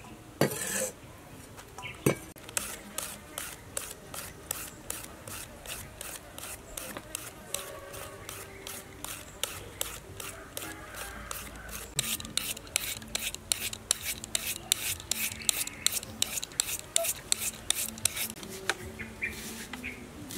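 Kitchen knife cutting vegetables in a steady run of sharp strokes, about three a second, after a louder clatter near the start.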